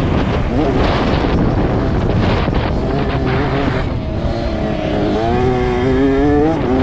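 A 65cc two-stroke motocross bike's engine running hard under the rider, mixed with wind buffeting the helmet-camera microphone. Its note comes through clearly after about four seconds, jumps up about a second later and keeps rising as the throttle is held open.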